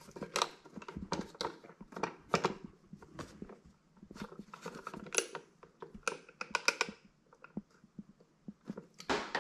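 Socket wrench tightening a bolt on a motorcycle's plastic bodywork: a string of sharp, irregular clicks and knocks, with a quick run of clicks about two-thirds of the way through.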